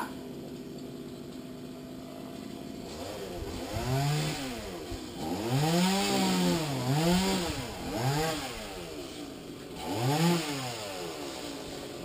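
Chainsaw revved up and down in about five short bursts, each pitch rising and falling back, with quieter running between them.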